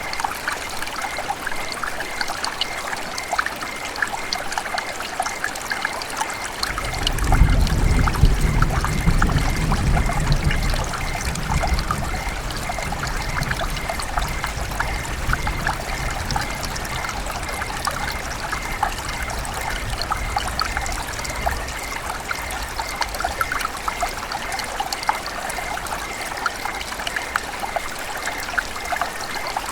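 River water running and trickling steadily, a constant babble with fine crackling splashes. About seven seconds in a low rumble swells up under it, then fades away over the next several seconds.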